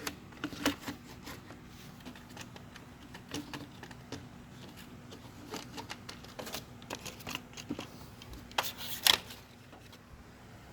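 Scattered small clicks and rustles of things being handled, over a faint steady hum, with a louder rustle about nine seconds in.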